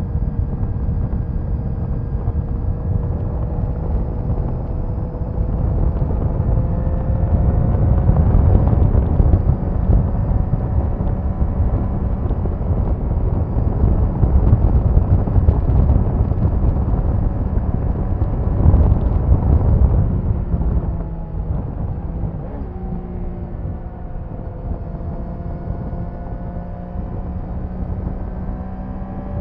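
Triumph Daytona 660's inline three-cylinder engine heard on board while riding, with heavy wind noise on the microphone. The engine note climbs slowly at first and is loudest through the middle. A little past two-thirds through it eases off, dipping and then climbing again near the end.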